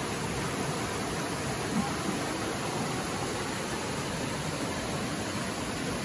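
Steady rushing of a shallow rocky stream, water running and splashing over and between boulders as an even hiss.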